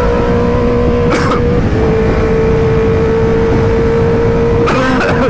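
Motorcycle riding at a steady speed: a loud, steady running tone under heavy wind and road rumble. Brief voice-like sounds cut in about a second in and again near the end.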